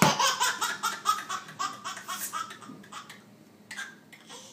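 A baby laughing hysterically: a run of quick, high-pitched laughs, several a second, that trails off after about two and a half seconds.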